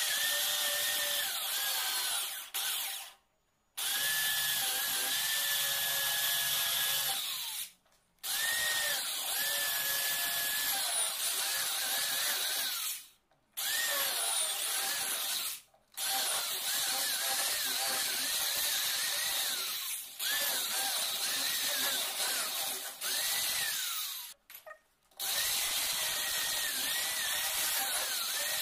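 Corded electric drill boring into the wooden edge of a door to make the pocket for a mortise lock. It runs in about seven spells of a few seconds each, with short stops between, and the motor's whine rises and falls as the bit takes load in the wood.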